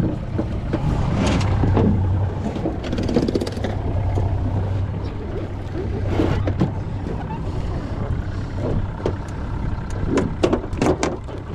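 Boat's outboard motor idling with a steady low hum, under wind noise, with scattered knocks and clatter about halfway through and again near the end.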